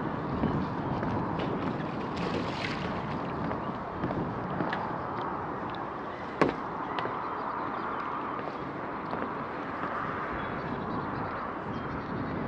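Steady outdoor ambience of a calm morning, an even wash of background noise with scattered light ticks and one sharp click about six and a half seconds in.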